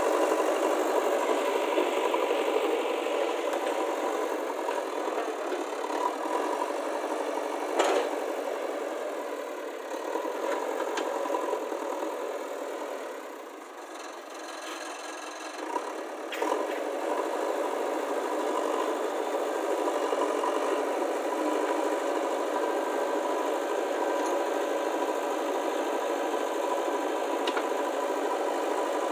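JCB 3DX backhoe loader's diesel engine running steadily, with a sharp knock about eight seconds in and another about sixteen seconds in. The engine sound drops lower for a couple of seconds around the middle.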